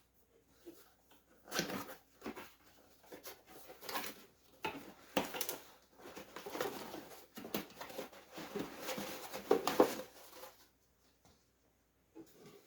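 Cardboard box being opened and its contents handled: irregular scrapes, taps and rustling of cardboard and packaging, dying away about two seconds before the end.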